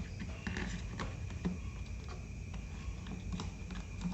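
Small irregular clicks and taps of hard plastic and metal as a laptop hard drive is lifted out of its bay.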